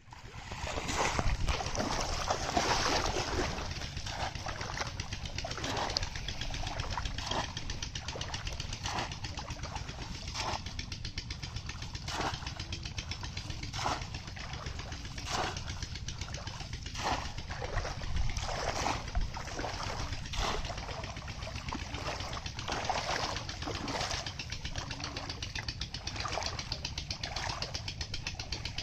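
Water splashing and sloshing as a bamboo cone fish trap is plunged again and again into shallow muddy water, with hands stirring inside it. The splashes come about once every second or two over a steady low rumble.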